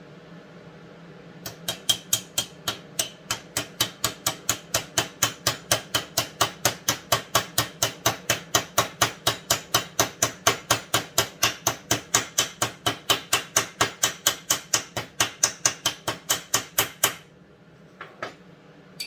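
A small hammer tapping quickly and evenly, about four or five light metal strikes a second, on a driver that seats the crankshaft seal into the McCulloch Super Pro 125 chainsaw's crankcase. The tapping stops abruptly near the end, and a few lighter clicks follow.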